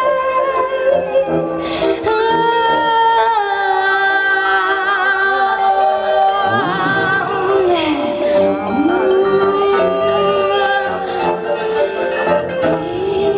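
A live band playing with no lyrics sung. A lead melody of long held, wavering notes runs over the accompaniment, sweeping down and back up about seven seconds in.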